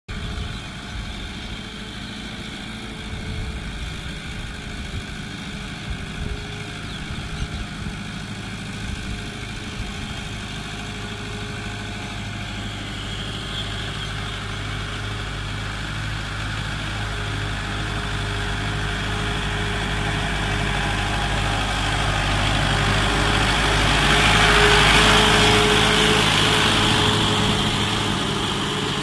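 Fiat 640 tractor's four-cylinder diesel engine running steadily while it pulls a laser land leveler through dry soil. The sound grows louder as the tractor draws near and is loudest near the end.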